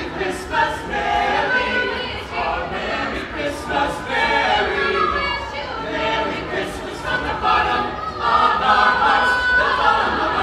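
A small choir of carolers singing a Christmas carol together.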